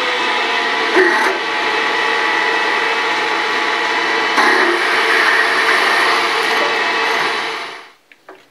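Bridgeport milling machine spindle running, its small twist drill cutting a hole into a metal plate: a steady motor whine mixed with cutting noise, which winds down near the end as the spindle is stopped.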